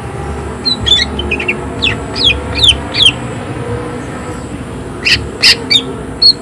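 Green leafbird (cucak ijo) singing harsh, sharp 'tembakan' shooting calls: a quick run of notes about a second in, four notes sliding down in pitch between two and three seconds, then a louder series of sharp calls after five seconds, over a steady low background hum.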